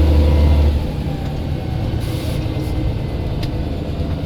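Scania L94 bus's diesel engine running, its heavy low drone dropping away about a second in as it comes off load, with a faint whine falling in pitch just after, in keeping with the turbo whistle.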